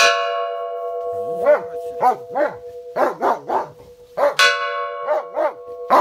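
A bell made from a hanging steel gas cylinder, struck twice with a metal rod about four seconds apart; each stroke rings on in several steady tones. A dog barks repeatedly over the ringing, starting about a second and a half in.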